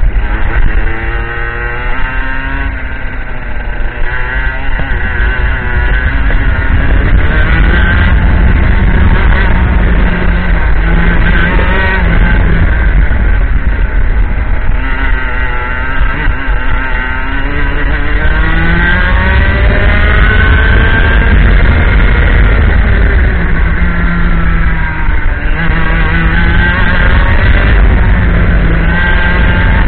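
IAME X30 125cc two-stroke kart engine under load on a lap, its pitch climbing for several seconds at a time as it revs out and dropping sharply when the kart slows for corners, several times over.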